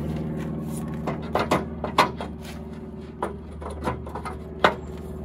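Tubular metal hoop frames being fitted to a steel trailer bed: a string of sharp clanks and knocks, the strongest about two seconds in and again near the end, over a steady low motor hum that eases after the first second.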